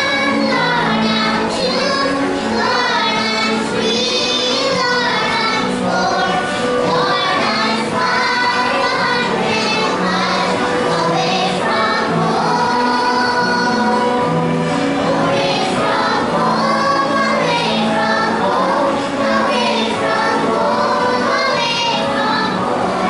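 A group of young children singing a song together, one voice through a handheld microphone, over an instrumental accompaniment with steady low held notes.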